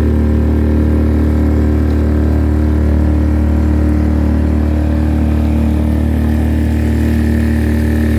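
Small motorboat's engine running at a steady speed under way: one constant, unchanging drone.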